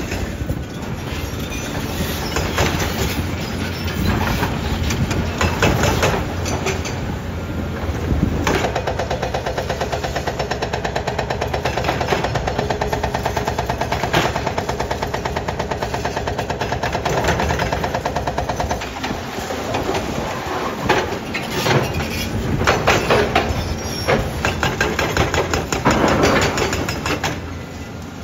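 Heavy demolition machinery running while breaking down a concrete building: a diesel engine working under load with repeated crunching, knocking and banging of concrete and debris, and a stretch of fast, even mechanical pounding in the middle.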